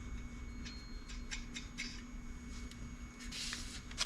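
Lug nuts clicking and clinking lightly as they are picked out of a lug nut kit by hand: a few scattered small clicks and a brief rustle near the end, over a steady low hum.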